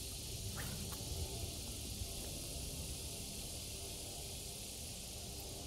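Steady high-pitched hiss of an insect chorus in summer vegetation, over a low rumble.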